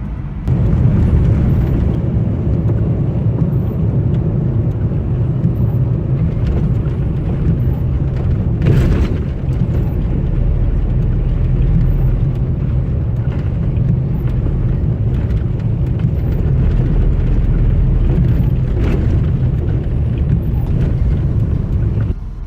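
Chrysler Stratus on the move, a loud, steady low rumble of engine and road noise that steps up about half a second in as it picks up. A short louder noise sounds about nine seconds in.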